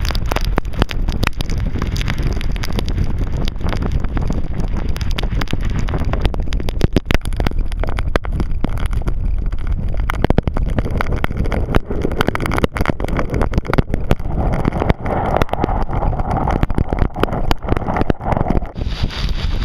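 Strong gusty wind buffeting the microphone: a loud low rumble with many sharp crackles, the rush growing brighter during the last few seconds.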